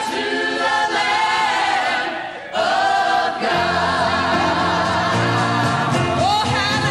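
Gospel choir singing in full harmony. After a short break just past two seconds, low bass notes from the band come in under the voices about halfway through.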